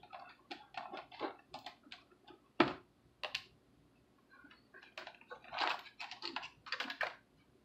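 Hands working the plastic deck and cockpit top of a toy RC jet boat: scattered light plastic clicks and taps with some rustling, the sharpest click about two and a half seconds in.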